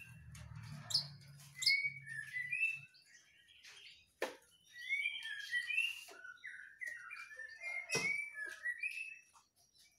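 Young male white-rumped shama singing: a run of short whistled phrases that glide up and down, broken by two sharp clicks, about four seconds in and at eight seconds.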